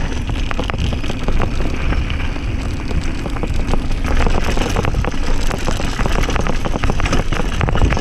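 Downhill mountain bike riding fast over a dirt and rocky trail: tyres running over the ground, with many quick rattles and knocks from the bike over rough ground, under steady wind rush on the microphone.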